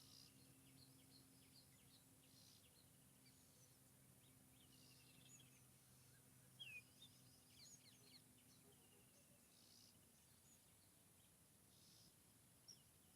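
Faint forest bird chorus: several songbirds chirping and trilling at once, with a louder, sharp falling call about seven seconds in. A faint low hum lies under them and fades out near the end.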